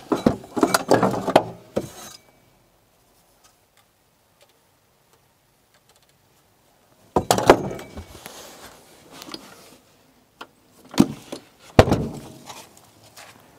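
Tools and car parts being handled: a cluster of clattering knocks, then after a long pause more knocks and two or three sharp thuds near the end.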